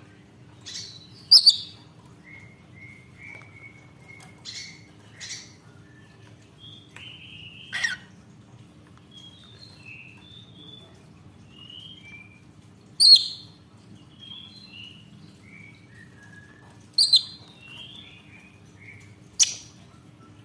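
Lovebird calling: sharp, shrill chirps every few seconds, with softer short twittering notes in between.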